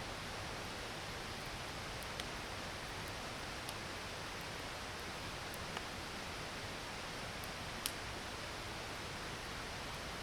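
A creek rushing steadily, with a few sharp pops from a crackling campfire; the loudest pop comes near the end.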